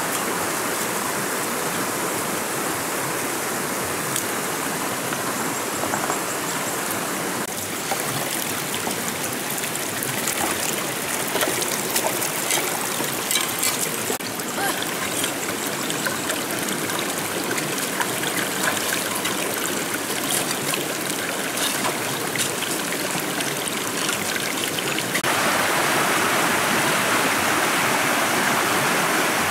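Shallow rocky stream flowing steadily, with scattered splashes from hands working in the water through the middle. Near the end the water noise turns louder and brighter.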